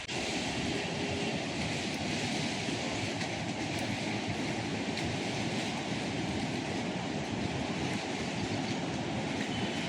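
Steady rushing noise of the Godavari river in flood, fast-flowing floodwater.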